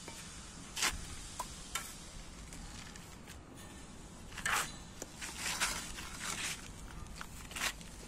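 Steel trowel scraping and smoothing wet mortar on a brick course: a few short scrapes about a second in, then a busier run of scrapes from about halfway through.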